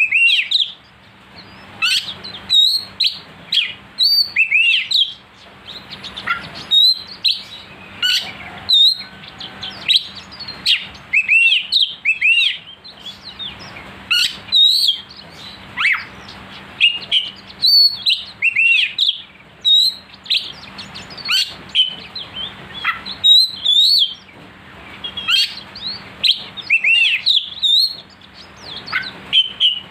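Oriental magpie-robin (kacer) singing a prolific, sharp-voiced song of rapid whistled slurs, chirps and rising and falling notes, in quick phrases with short breaks.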